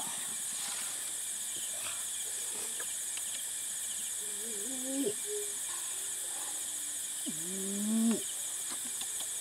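Two short, low, bird-like calls whose pitch glides and wavers, the second a little louder, over a steady high-pitched insect drone.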